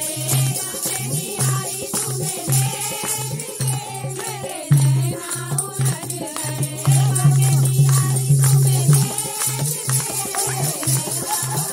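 Live Hindi devotional bhajan at a kirtan: voices singing over a pulsing low drum beat and constant jingling hand percussion.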